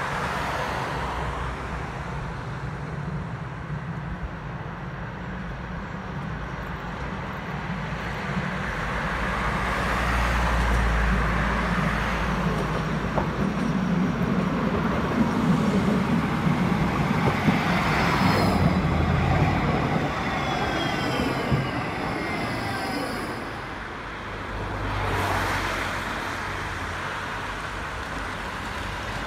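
Electric tram approaching on its track, its wheels rumbling on the rails and growing louder toward the middle. Its motors whine and fall in pitch as it slows. Road traffic runs alongside, with another vehicle swelling past near the end.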